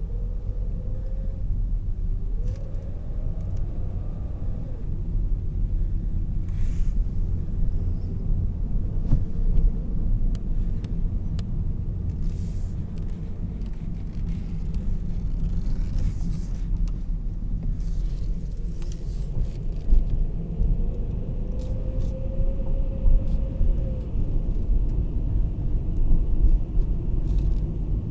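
Steady low rumble, with a faint engine-like tone gliding up and then down twice, a couple of seconds in and again about three-quarters through.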